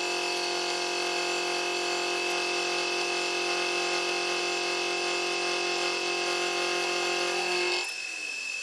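Milling machine running with a steady whine of many fixed pitches, which cuts off sharply near the end, leaving a fainter hum.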